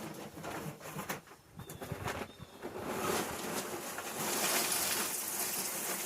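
Lump wood charcoal poured from a nearly empty bag into a metal chimney starter. Pieces clatter and knock, then about three seconds in it turns into a denser rattling rush of small bits and dust.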